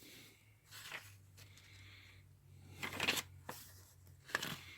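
Pages of a paper instruction manual being turned, a few short crisp rustles, over a faint steady low hum.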